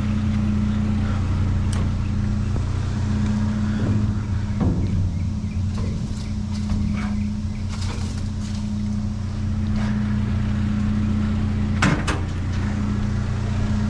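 Vehicle engine idling steadily, with a few scattered knocks and clicks over it.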